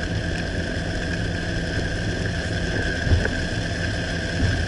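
Steady engine and road noise of a car driving on a highway, heard from inside the cabin, with two brief low thumps about three and four and a half seconds in.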